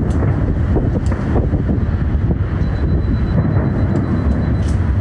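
Large fireworks display: a continuous low rumble of many overlapping booms, with a few sharper cracks about a second in and near the end.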